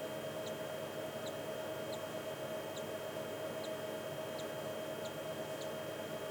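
Faint, very short high peeps of a hatching cockatiel chick, repeating roughly every half second to second, over a steady electrical hum.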